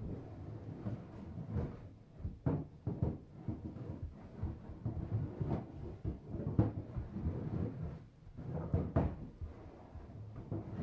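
Irregular thumping and bumping from the attic, a continual low rumble of knocks with a handful of sharper, louder knocks spread unevenly through it.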